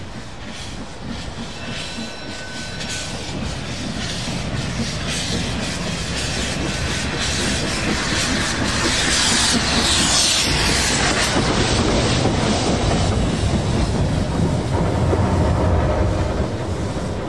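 Hudswell Clarke 0-6-0 steam tank locomotive working past at low speed: steady chuffing exhaust beats with loud hissing steam from its open cylinder drain cocks. The sound builds as the engine draws near and is loudest as it passes, about ten seconds in until near the end.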